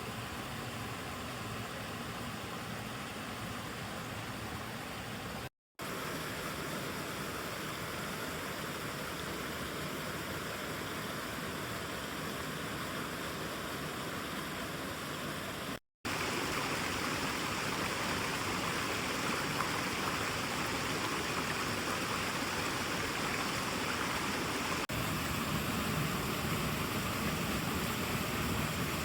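Mountain stream water rushing over rocks, a steady rush. It cuts out briefly twice and is a little louder after the second break.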